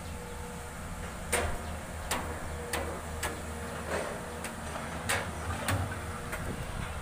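Diesel engines of PC200-class hydraulic excavators running steadily at work, with sharp, irregular knocks every half second to a second.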